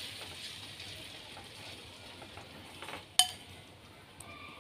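Leafy greens sizzling in hot oil in a metal wok, the sizzle slowly dying down as a ladle stirs them. About three seconds in, one sharp metallic clank as the ladle knocks the wok.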